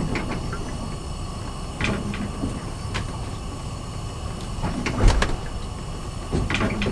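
Gas stove burner flame hissing steadily, with metal tongs clicking and knocking several times; the loudest knock comes about five seconds in.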